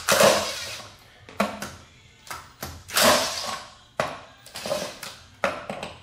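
Quarter-inch impact driver hammering in a string of short bursts, about eight in all, spinning loose the plastic lug-nut covers that hold a hubcap on.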